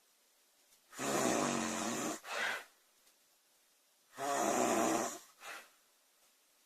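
A woman snoring loudly while asleep. There are two snores about three seconds apart, each a rough, pitched snore of about a second followed closely by a short second burst.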